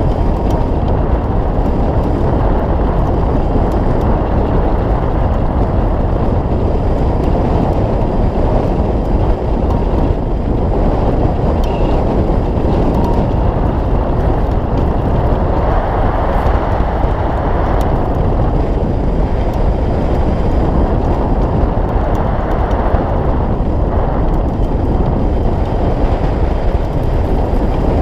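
Steady, loud rush of airflow buffeting the microphone of a camera mounted on a hang glider's wing in flight.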